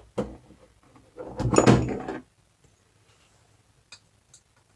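Hand tools working on a motorcycle engine during teardown: two short knocks, then a rough scraping rattle lasting about a second, and a couple of light clicks near the end.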